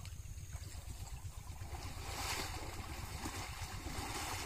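Wind buffeting the microphone, with a hissing, rushing noise that swells about two seconds in.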